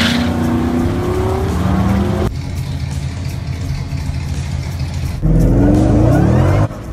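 Car engines accelerating hard, heard in short clips cut together. The engine note climbs in pitch over the first two seconds, a sudden cut brings a steadier, lower engine sound, and a louder climb comes near the end before it cuts off abruptly.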